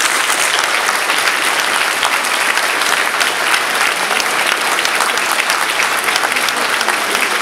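A large audience applauding, many hands clapping at once at a steady level.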